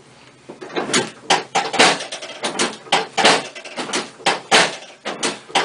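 A quick, uneven series of knocks and thuds, about two to three a second.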